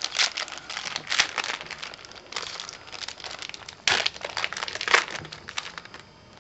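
Yu-Gi-Oh Turbo Pack booster-pack wrapper crinkling and crackling in the hands as it is opened, in irregular bursts. It fades out near the end.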